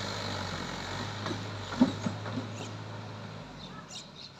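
Mahindra Yuvo 575 DI tractor's diesel engine running steadily and fading away as the tractor drives off, dying out about three-quarters of the way through. A few short, sharp sounds come about two seconds in.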